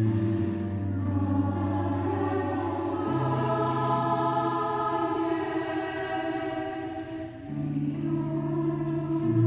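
Mixed choir singing held chords that change every few seconds, with a brief dip in level about seven seconds in before a new chord enters.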